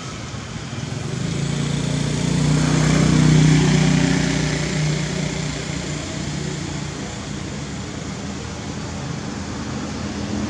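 A motor vehicle's engine passing by, growing louder to a peak about three seconds in and then fading away, over a steady background hum of traffic.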